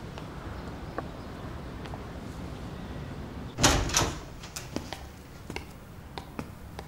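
A door: two quick knocks close together about three and a half seconds in, then a few light clicks.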